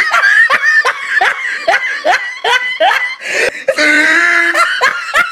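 A person laughing in quick repeated bursts, then a longer held high voiced sound near the end.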